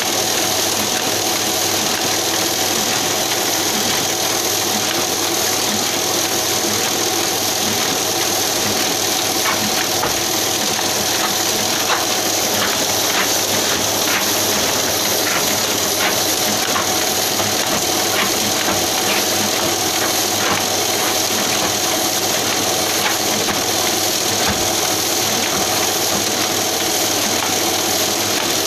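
Ryobi sheet-fed offset printing press running steadily while it prints: a continuous mechanical clatter of rollers and feeder with a constant whine, and light ticks coming through in the middle.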